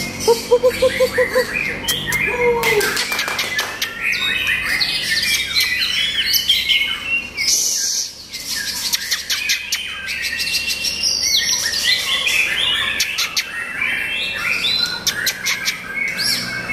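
White-rumped shama singing: a long, varied run of quick whistled and chattering phrases. A short series of about six lower, evenly spaced notes comes in the first two seconds.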